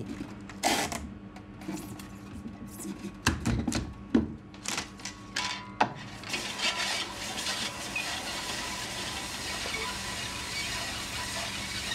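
Sharp metal clicks and clacks of a tape film splicer being handled with gloved hands, over a faint steady hum. From about halfway, a steady rustling hiss of film stock rubbing as it slides across the table.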